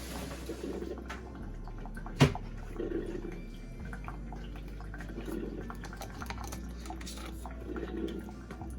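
Mr. Coffee Iced coffee maker brewing: water gurgling and dripping through in soft recurring swells over a steady hum, with one sharp knock a little over two seconds in.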